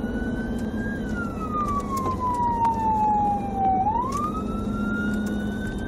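Police car siren on a wail, over the steady drone of the patrol car's engine and tyres at highway speed. The pitch falls slowly for about three seconds, then sweeps quickly back up and climbs again near the end.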